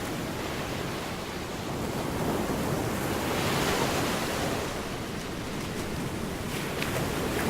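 Gulf of Mexico surf: small waves breaking and washing on the beach, swelling about halfway through and again near the end, with some wind on the microphone.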